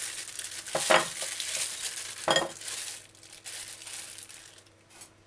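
Plastic bag crinkling and rustling as frozen chicken pieces are worked out of it onto a plate, with two short louder moments in the middle; the rustling dies away after about three seconds.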